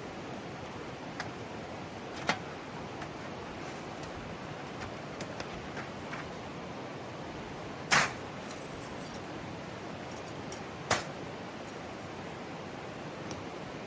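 Steady rush of a mountain stream, with a few sharp knocks and clacks over it, the loudest about eight seconds in.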